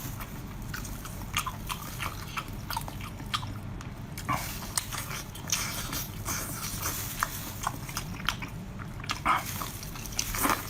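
Close-miked eating: biting and chewing, with many short, irregular wet clicks and smacks.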